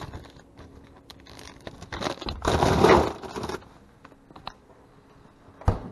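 Plastic dog food bag crinkling and rustling as it is handled and put away, with a louder stretch of rustling about two and a half seconds in. A sharp knock near the end.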